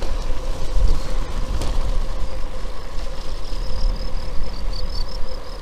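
Wind rumble and road noise picked up by an action camera on a moving bicycle, a steady low rumble with a faint steady hum above it.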